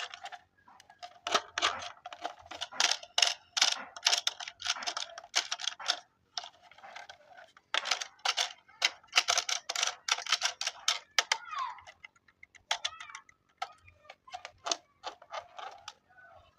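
Rapid, irregular clicking and clattering of small hard objects, broken by short pauses, with a brief chirping tone about twelve seconds in.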